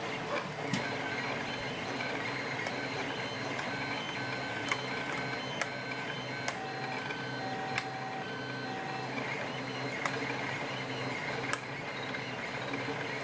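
Two 3D printers running: their motors give short steady tones that jump from pitch to pitch over a constant mechanical hum. Sharp popping clicks come every second or two.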